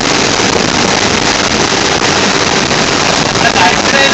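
Rain beating on a moving bus's windows and body, mixed with the bus's road and engine noise, heard from inside the cabin as a loud, steady hiss.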